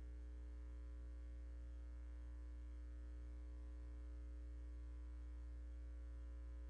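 Faint, steady electrical mains hum, a low drone with higher overtones that never changes, and no other sound.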